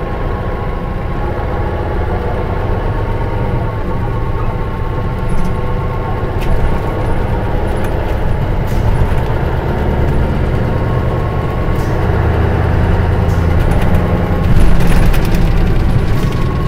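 Engine of a 2002 Mitsubishi Fuso Aero Bus KL-MS86MP coach running as heard from inside the cabin: a steady drone with a few light clicks and rattles, growing louder over the last few seconds.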